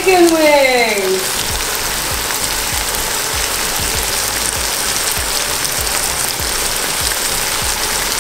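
Glazed chicken wings sizzling in a hot frying pan while rum burns off them in a flambé: a steady hiss.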